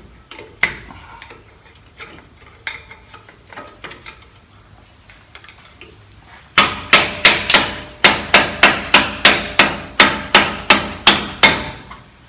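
Hammer striking a screwdriver to drive out a front brake pad frozen in its caliper bracket because it no longer slides. Light metal clicks and taps at first, then from about halfway a fast run of sharp, ringing metal-on-metal blows, about four a second, that stops just before the end.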